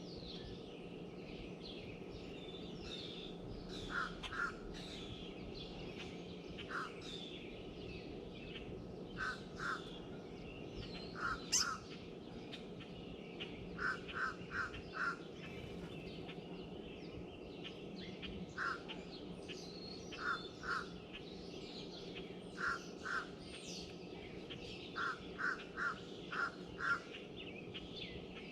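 Birds calling: short calls that come singly or in quick runs of two to four, repeated through the whole stretch, over continual high chirping and twittering from other birds.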